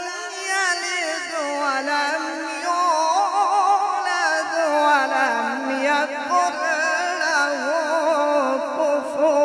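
A male qari reciting the Quran in long, drawn-out chanted phrases, his voice wavering quickly up and down in ornaments and sinking slowly in pitch, amplified through a microphone.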